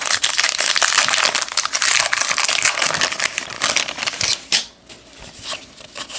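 Wrapper of a trading-card pack crinkling loudly as it is opened, a dense crackle lasting about four seconds, then lighter flicks and rustles of the cards being handled.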